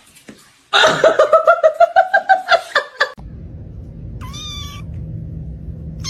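A cat's long, rapidly pulsing call that rises slightly in pitch, lasting about two and a half seconds, then a short meow over a steady low hum about four seconds in, with another meow beginning at the end.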